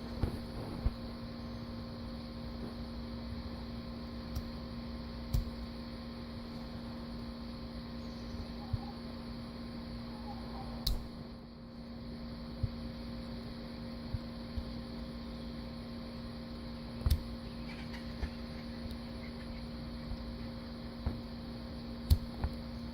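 Steady electrical-sounding hum made of several held tones, over a low rumble of wind on the microphone, with a handful of short sharp clicks scattered through it.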